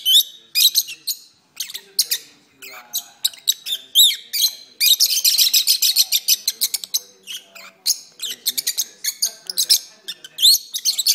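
Peach-faced lovebirds chattering and singing: a fast, unbroken stream of high chirps, squeaks and short whistled glides, most dense about five to six and a half seconds in.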